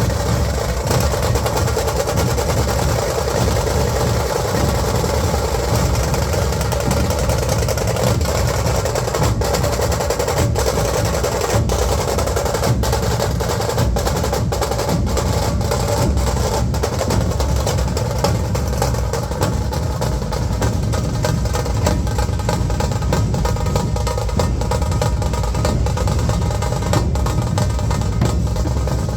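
Dhol-tasha drumming: big barrel dhols and snare-like tashas beaten with sticks in a loud, fast, unbroken rhythm.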